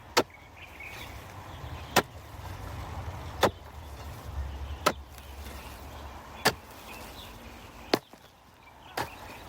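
A hand digging tool chopping into soil, one sharp strike about every second and a half, seven in all, as ground is dug for planting corn.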